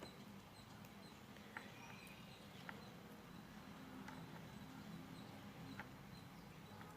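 Near silence: faint room tone with a low hum and a few faint, brief clicks.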